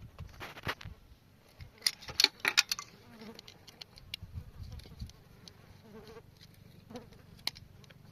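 A small washing machine's electric motor is buzzing with a low steady hum that grows stronger about halfway through. Sharp clicks and knocks come over it, most of them between about two and three seconds in.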